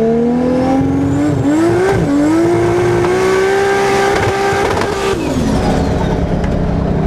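Turbocharged Ford Barra inline-six in a Holden VL Calais drag car pulling hard under full throttle. The pitch climbs, dips once about two seconds in at a gear change, and holds high until the driver lifts off about five seconds in. It then falls away to a lower, steadier note.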